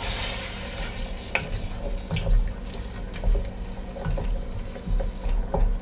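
Wooden spoon stirring crushed tomatoes and sautéed onion in a stainless steel pot, with scattered short scrapes and knocks of the spoon against the pot. A soft sizzle underneath thins out after about the first second.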